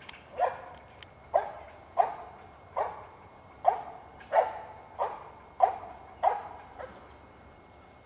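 Squirrel dog barking at the tree: about ten barks, roughly one every two-thirds of a second, stopping shortly before the end. It is the tree bark of a dog that has squirrels treed.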